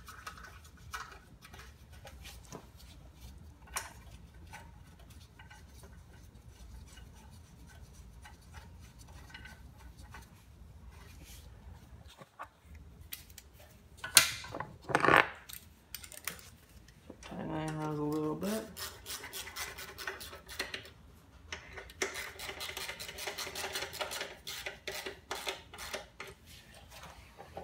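Socket ratchet clicking in fast runs as it drives in the bolts of a lawn mower's engine cover, after faint scraping of hands on metal and a few sharp metal knocks in the middle.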